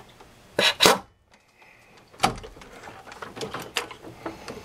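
Air-powered wrench firing two short bursts about a second in, spinning out a 14 mm water pump bolt. After that come a sharp clink and a run of light metallic clicks and taps as the socket and bolt are handled by hand.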